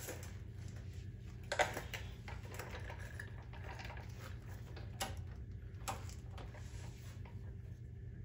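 A few light clicks and clinks of small metal parts being handled, the loudest about one and a half seconds in, over a low steady background hum.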